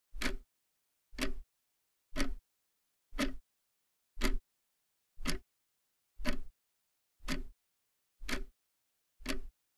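Wall clock ticking steadily, one tick a second, with silence between the ticks.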